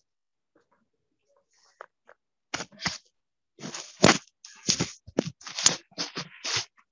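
Irregular clatter of clicks and taps, like typing on a computer keyboard, starting about two and a half seconds in.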